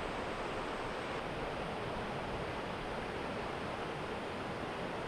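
Steady rushing noise of typhoon-driven surf and wind.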